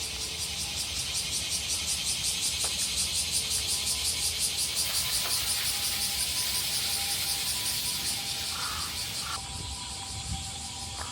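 Cicadas singing in a loud pulsing chorus, about four pulses a second, which fades and breaks off about nine seconds in.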